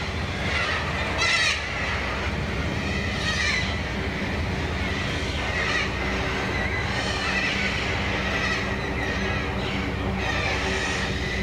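High, wavering animal calls from a flock flying overhead, recurring every second or two, over a steady low hum.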